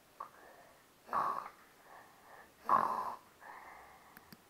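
A person's voice imitating a cat's snoring: two loud, breathy snores about a second and a half apart, with softer breaths between them.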